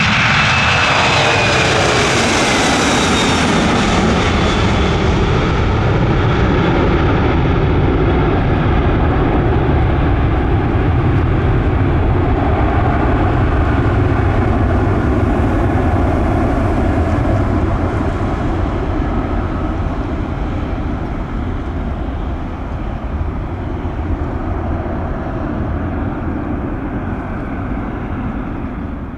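Boeing 767-300ER's twin turbofan engines at high thrust, very loud as the jet passes with a falling pitch in the first few seconds, then a steady rumble that slowly fades as it moves away on departure.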